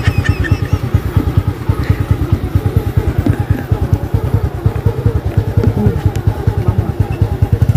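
Small motorcycle engine running with a steady, rapid putter.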